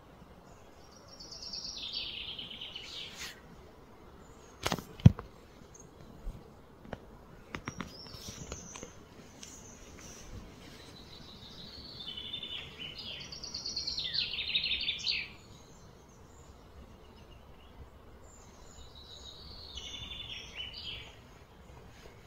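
Outdoor wildlife calls: three bouts of high, rapid trilling, about a second in, around twelve to fifteen seconds in and near the end, over a faint steady background. About five seconds in there is a single sharp knock, the loudest sound, followed by a few fainter clicks.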